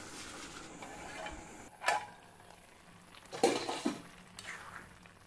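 Steel lid and cooking pot clinking and clattering: one sharp clink about two seconds in, then a louder burst of metal clatter around three and a half seconds and a lighter clink soon after, as the lid is handled on the pot.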